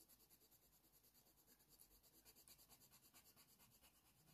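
Faint, quick scratching of a Faber-Castell Polychromos colored pencil stroked back and forth over hot-press watercolour paper, laying down a light base layer.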